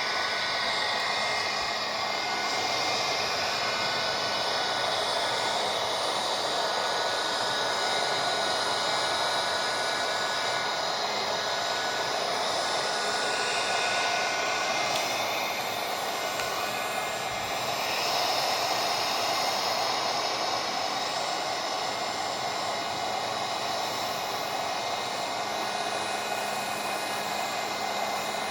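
Hot-air blower used as a circuit-board preheater, running steadily on its higher heat setting with a continuous rush of air, warming the controller board so the relay can be desoldered.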